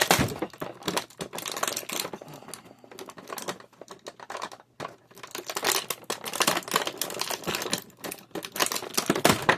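Action-figure packaging crinkling and rustling as it is handled during unboxing, in repeated bursts with a short lull a little before halfway.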